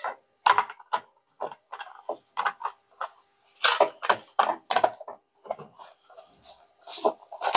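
Plastic case of a steel tape measure being closed by hand, the lid pressed and snapped onto the base over the reel: a run of irregular plastic clicks and knocks, about one or two a second.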